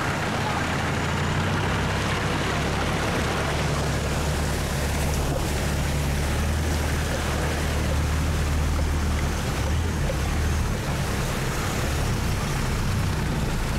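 Off-road 4x4's engine running steadily as it drives along a rough trail, heard from inside the cabin, with a constant rush of wind and road noise over the low engine hum.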